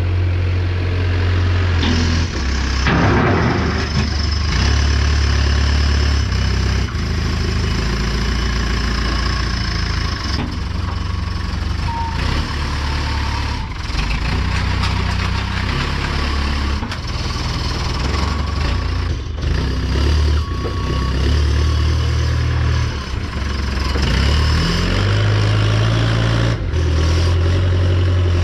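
Combine harvester running steadily while cutting, a heavy engine with machinery noise over it.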